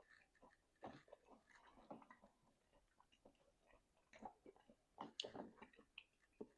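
Quiet, close-up chewing and biting of chicken wings: irregular clusters of wet mouth clicks and crackles, busiest about a second in and again near the end.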